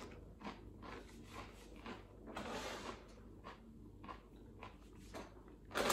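Faint chewing of straight-cut potato crisps: small, irregular crunches with the mouth closed.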